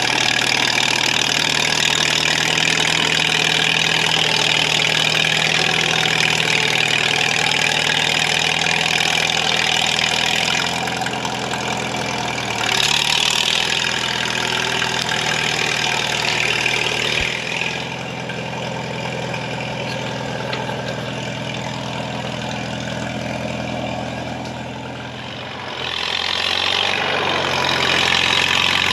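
An engine running steadily. It eases off about a third of the way in, drops lower past the middle, and picks back up near the end.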